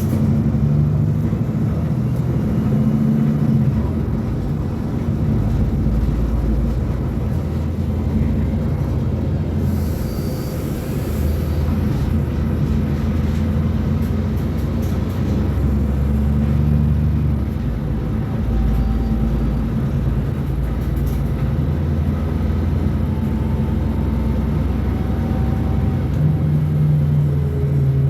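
Diesel engine of a Mercedes-Benz O500U city bus running steadily, its low note rising and falling as it pulls and eases off. A brief hiss comes about ten seconds in.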